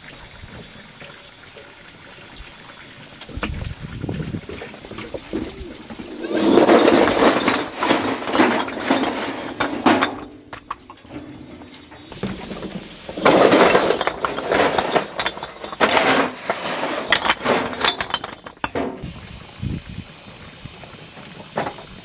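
Red clay hollow bricks tipped from a wheelbarrow, clattering and knocking onto a pile of bricks in two loud runs, the first about six seconds in and the second about thirteen seconds in.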